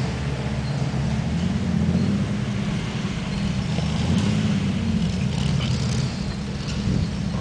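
Off-road Jeep engine running steadily at low revs, with a few light rattles in the second half.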